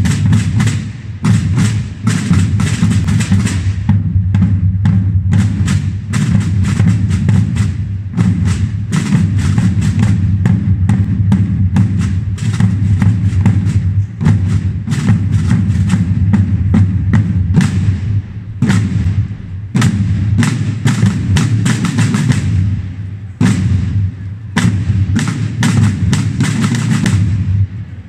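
A band of processional side drums (tambors) playing together in fast strokes and rolls, breaking off briefly several times between phrases.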